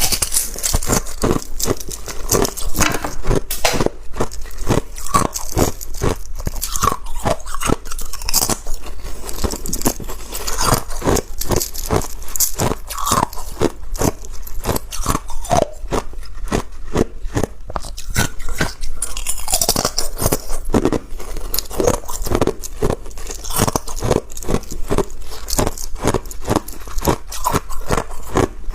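A person biting and chewing ice: a steady run of sharp, irregular crunches and crackles, several a second.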